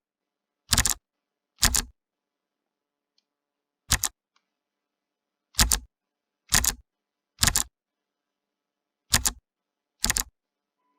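Clicky keyboard keys pressed one at a time: eight separate sharp clicks at uneven intervals, each a quick double click, with a pause of about two seconds after the second one.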